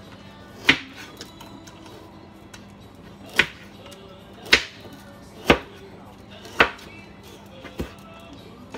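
Kitchen knife slicing carrots on a wooden cutting board: six sharp chops at uneven intervals, each one the blade striking the board.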